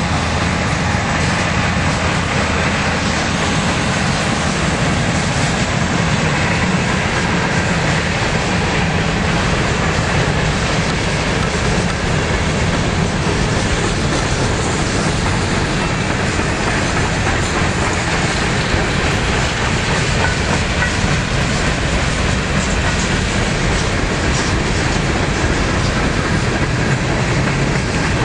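Long freight train of boxcars rolling past: steady rumble and clatter of steel wheels on the rails.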